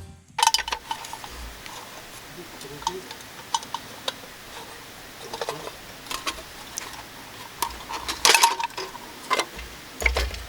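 Irregular light metallic clinks and clatter of small metal objects being handled, with a louder burst of clatter about eight seconds in.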